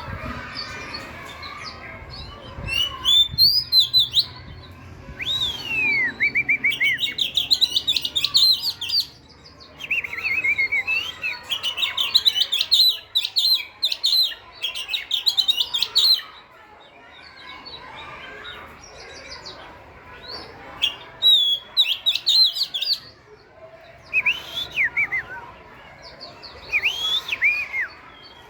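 Oriental magpie-robin singing: several bouts of quick, varied whistled and chattering phrases, with short pauses between them.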